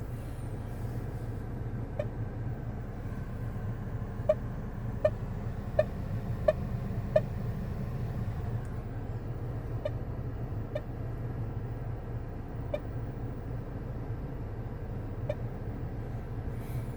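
Short beeps from a Renegade REU-5D86 car stereo head unit, about a dozen at uneven intervals, over a steady low hum. The owner says the beeps come out of the speakers with noise.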